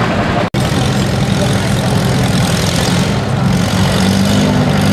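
Antique tractor engine running steadily under load while pulling a weight-transfer sled, with a slight rise in pitch near the end. The sound drops out for an instant about half a second in.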